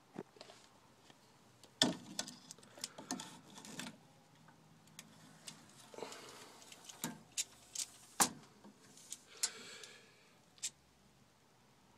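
Scattered sharp clicks and light metallic rattles of a tape measure being pulled out and handled against the wall framing, with a couple of louder knocks about 2 and 8 seconds in.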